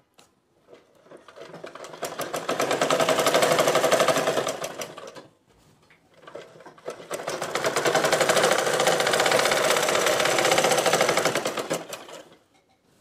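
Domestic sewing machine stitching cotton fabric in two long runs with a short pause between, each a fast, even rattle of stitches that builds up and then eases off.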